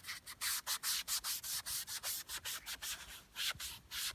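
A sponge soaked in oil rubbed briskly back and forth along a Lada Kalina's rubber door seal: a quick series of short rubbing strokes, several a second. The seal is being lubricated so it stops squeaking.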